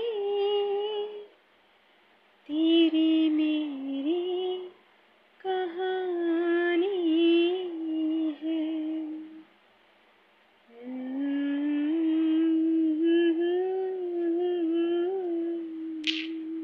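A woman singing slowly without accompaniment, in four long phrases of held notes with short silent pauses between them. A brief high swish comes near the end.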